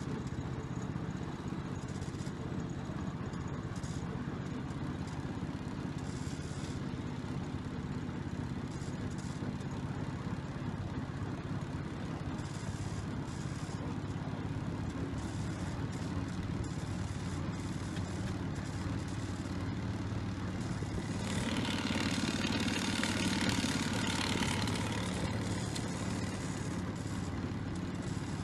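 Small petrol engine of a miniature-railway petrol-mechanical shunter running steadily under way along the track, growing louder and harsher for a few seconds about three-quarters of the way through.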